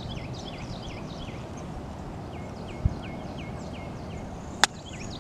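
A golf iron strikes the ball with one sharp click about four and a half seconds in. Behind it a bird repeats a quick falling chirp over and over, with a pause midway. There is a short dull thump just before three seconds.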